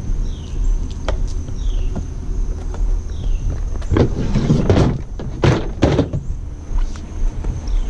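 Hollow plastic knocks and clatter as a plastic kids' water table is shoved into a pickup truck's bed, loudest between about four and six seconds in, over a steady low rumble.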